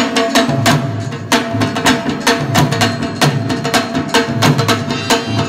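Instrumental interlude of Pashto folk music: harmonium and rabab playing over a steady dholak drum beat.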